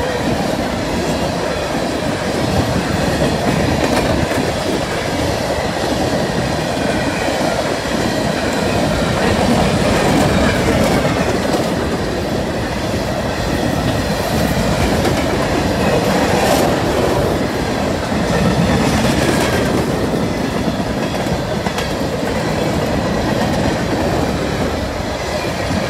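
Empty open-top coal cars of a long freight train rolling past: a steady rumble with the rhythmic clickety-clack of wheels over the rails, and one sharper knock about sixteen seconds in.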